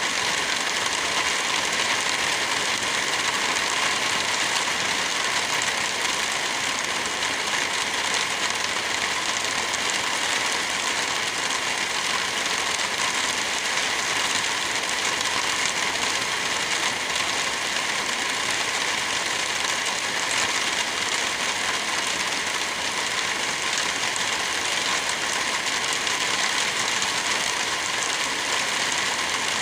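Light rain falling with wind blowing through forest trees: a steady, even hiss that does not change.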